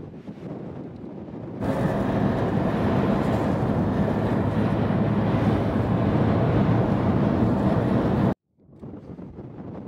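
Wind noise on the microphone, then about a second and a half in a louder steady rumble of a car driving on a paved road, heard from inside the car. The rumble cuts off abruptly near the end, and after a brief silence wind noise returns.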